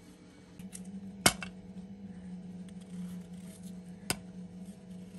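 Small knife peeling and cutting raw potatoes by hand, with light scraping and ticking of the blade. Two sharp knocks are heard, the first and louder about a second in, the second near the end, over a steady low hum.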